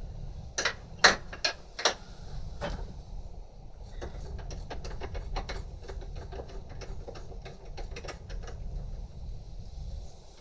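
Ratchet and socket undoing bolts on a car engine: a few sharp clicks early on, then a long run of quick ratchet clicks through the middle.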